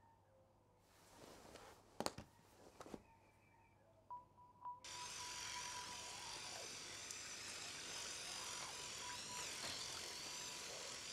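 Electric toothbrush running steadily as it brushes the teeth, its high whine wavering a little. It starts about five seconds in, after a few sharp clicks.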